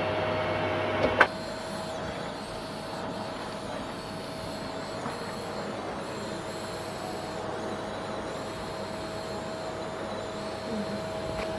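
Arçelik vacuum cleaner motor running steadily, most likely the repaired machine on test. There is a sharp click about a second in, after which it runs a little quieter.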